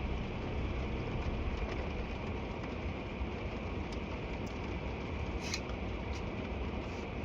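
Steady low rumble with a faint hiss inside a car, broken by a few faint ticks.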